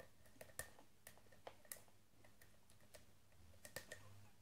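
Faint, irregular light clicks of a lock pick working the pins of a Wilka 5-pin euro cylinder held under heavy tension.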